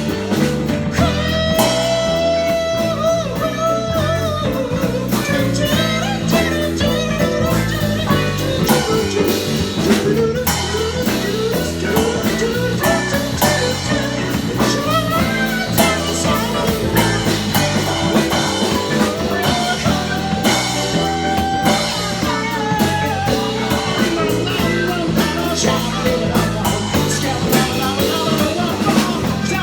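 Band music: a rock song with drums, bass and a gliding lead guitar line.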